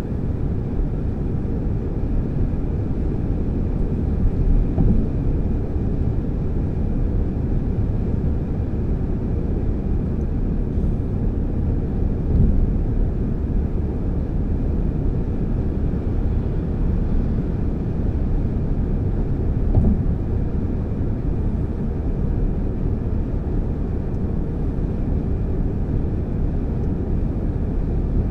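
Car driving at motorway speed, heard from inside the cabin: a steady low rumble of tyres on asphalt and engine, with a few brief swells.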